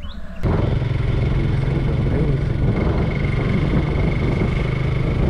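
Motorcycle engine running steadily on the move, with road and wind noise; it cuts in suddenly about half a second in.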